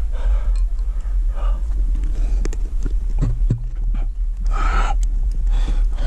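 A rock climber's hard, heavy breathing while climbing: several forceful breaths, the loudest near the end, with a few sharp clicks and knocks of hands or gear against the rock midway.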